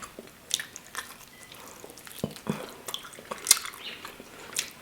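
Close-up eating sounds of a roast turkey dinner: scattered wet clicks and smacks of chewing, with a few light knocks of cutlery.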